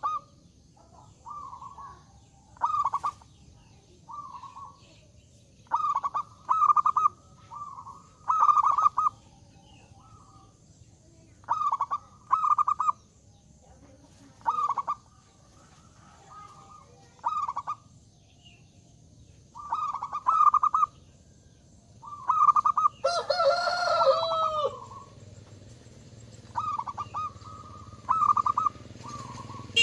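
Zebra doves (perkutut) cooing in short bursts, repeated one after another, with a bird in full song. About three-quarters of the way in, a rooster crows once, the loudest sound of the stretch.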